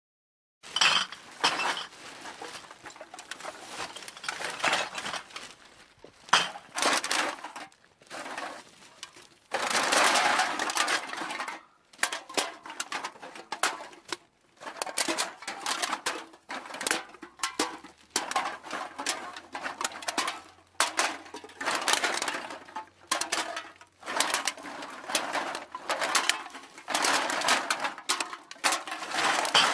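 Aluminium cans clattering and knocking together in a series of separate rattling bursts with short gaps between, one longer run of rattling about ten seconds in.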